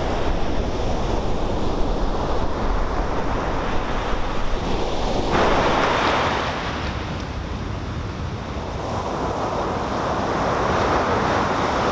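Ocean surf breaking on a sandy beach: a continuous wash of waves, with one wave crashing loudly about five seconds in and the surf building again near the end.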